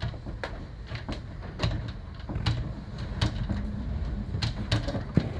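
Hurricane-force wind rumbling against a house, with irregular sharp bangs and cracks from the structure giving way and debris striking it, several times a second at most.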